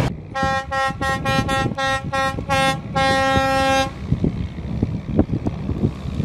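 A boat's horn sounding a rapid string of about ten short blasts, then one long blast. After it, a rough rushing noise with scattered small knocks.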